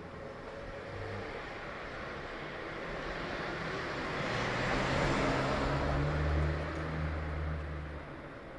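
A car driving past on the street: its tyre and engine noise grows, is loudest about five to six seconds in, and then fades away.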